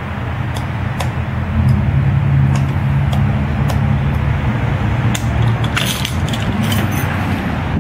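A steady low rumble and hum with scattered light clicks and taps throughout.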